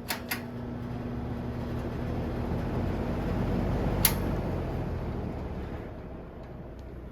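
Vintage ILG box fan running, its air rush and motor noise swelling to a peak about four seconds in and then fading, with a low hum that dies away about halfway. Two sharp clicks at the start and one more at the peak. The fan's blades are off balance from a broken tip and trimmed tips.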